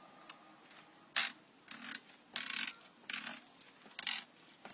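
Handling noises as a power drill is fitted onto a bicycle's crank spindle: a sharp click about a second in, then several short rubbing and scraping sounds. The drill is not running.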